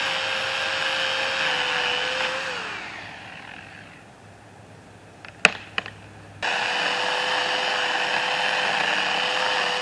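Electric drill (a Rockwell Shop Series) running at a steady high speed with a whining motor, then winding down about two and a half seconds in. A few sharp clicks follow, and the drill starts again abruptly about six and a half seconds in and runs steadily.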